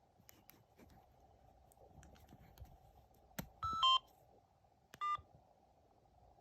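Samsung SGH-M110 mobile phone giving short electronic key beeps: faint clicks, then a two-note beep a little over three and a half seconds in and a single shorter beep about five seconds in.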